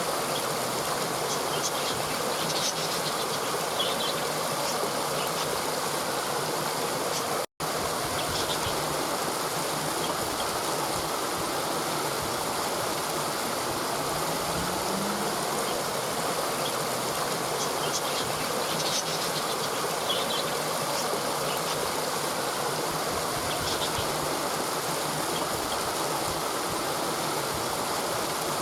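Waterfall rushing steadily in a constant even wash of water noise, with faint high chirps here and there. The sound cuts out for a split second about seven seconds in.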